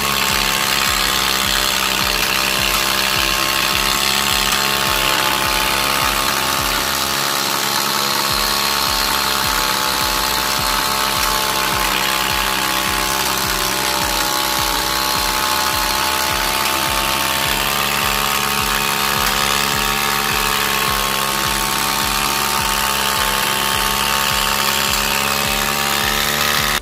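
SYM motorcycle engine running steadily through a loud aftermarket exhaust muffler, holding an even pitch with no revving.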